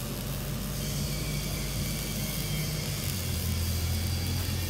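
A vehicle engine running with a steady low hum, its note shifting slightly about three seconds in.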